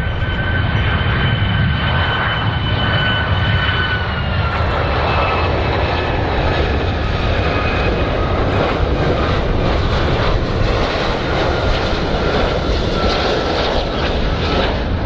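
Boeing 757 jet airliner on landing approach with its gear down: the engines give a steady rumble under a high whine that drops slightly in pitch about four seconds in and again later.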